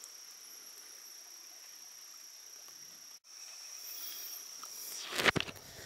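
Insects chirring in one steady high note over the faint wash of creek water flowing across a flooded ford, with a few sharp knocks near the end.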